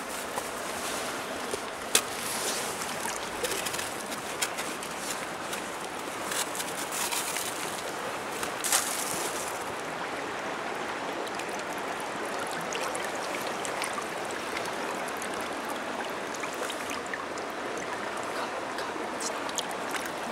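Steady rush of a fast, shallow river running over rocks. A few sharp knocks cut through it, the loudest about two seconds in.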